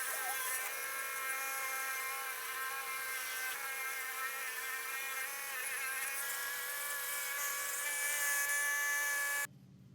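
Homemade 2x72 belt grinder driven by a 600 watt treadmill DC motor, running with a steady whine over a hiss as a chisel trues up the wheel against the moving belt. The sound cuts off suddenly near the end.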